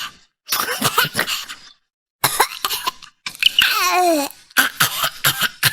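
A voice imitating a baby coughing: runs of short, raspy coughs, with a whimpering cry that falls in pitch about three and a half seconds in. The imitation sounds like a real baby.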